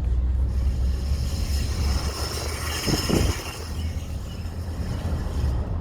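2011 Ford F-150's 5.0-litre V8 engine running under acceleration with a rattling noise. The rattle builds about half a second in and drops away near the end, over a steady low engine drone.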